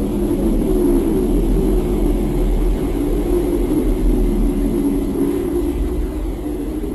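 A loud, steady low drone with a deep rumble underneath and a wavering hum above it.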